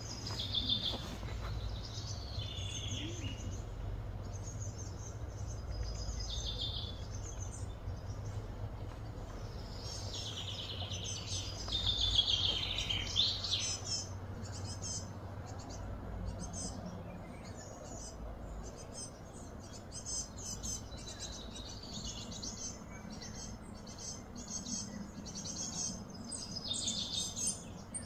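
Wild birds singing and calling: sweeping, chirping phrases, loudest about ten to fourteen seconds in, then quicker runs of short chirps, over a steady low outdoor rumble.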